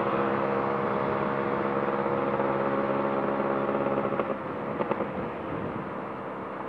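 Yamaha RX two-stroke single-cylinder motorcycle engine running at a steady highway cruise. About four seconds in the engine note drops and fades, leaving mostly road noise.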